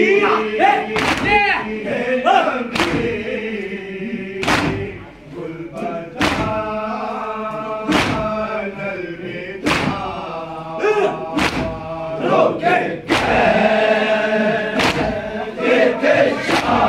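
Group of men chanting a farewell latmiyah (noha) in unison, kept in time by sharp chest-beating (matam) strikes roughly every second and a half to two seconds.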